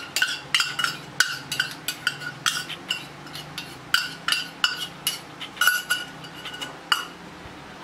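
Steel spoon scraping and tapping against a small stainless-steel bowl as paste is emptied out of it: a quick run of metal clinks, about three a second, each ringing briefly, stopping about seven seconds in.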